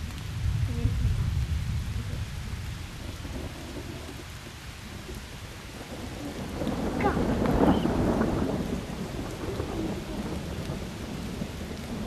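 Thunder rumbling over steady rain: a low roll in the first couple of seconds, then a louder, sharper peal that builds to its peak about seven to eight seconds in and rolls away.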